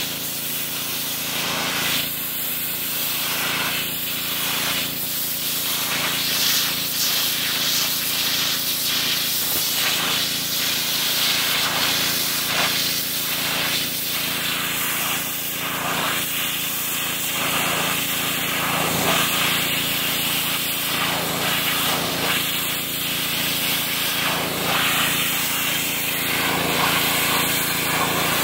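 Pressure washer jet spraying against a whitetail deer hide to flesh it, giving a loud, steady hiss. The hiss swells and fades as the jet sweeps across the skin, over the steady hum of the washer's pump.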